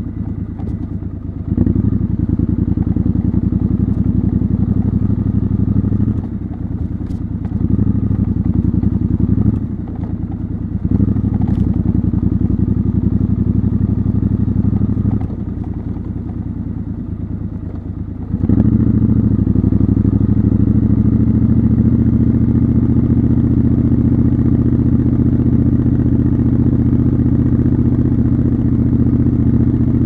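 Triumph Scrambler motorcycle engine and exhaust riding at low speed, recorded raw from the rider's position. The throttle is rolled off and on several times in the first half, then held steady and louder from about two-thirds of the way through.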